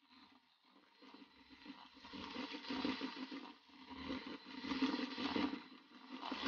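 Electric hand mixer running faintly, its beaters whipping butter and vegetable shortening in a stainless steel bowl. It comes in about a second in with a steady low hum and rises and falls unevenly.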